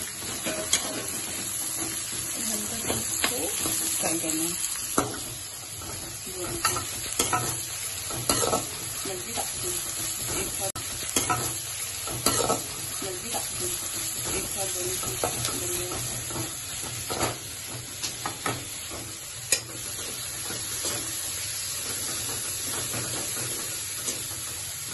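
Sliced onions and green peppers frying in oil in a kadhai, sizzling steadily, while a metal spatula stirs them with frequent irregular scrapes and clinks against the pan.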